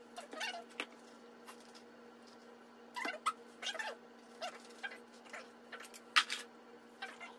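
Short high-pitched animal calls, each bending in pitch, repeated several times at irregular intervals over a steady low hum. A sharp click about six seconds in is the loudest sound.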